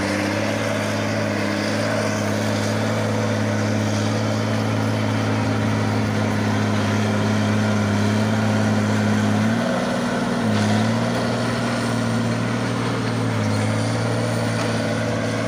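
Komatsu D50 crawler bulldozer's diesel engine running steadily at working speed, its pitch rising briefly about ten seconds in, then settling back.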